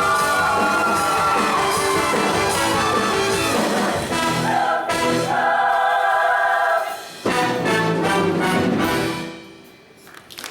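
Show choir singing with an accompanying band through a few held chords, a brief break about seven seconds in, then a final chord that fades away near the end.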